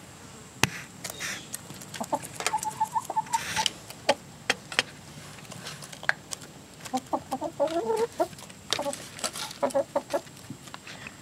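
Several hens clucking in short, soft calls while feeding, with a busier run of clucks about seven seconds in. Sharp clicks throughout are their beaks pecking at feed in a metal feeder tray.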